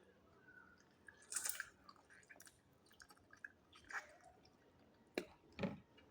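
Faint, wet chewing and mouth sounds while eating roast chicken, with a few scattered soft clicks and squishes.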